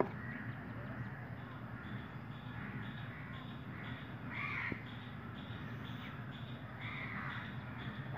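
A crow cawing twice, a couple of seconds apart, over a steady low hum.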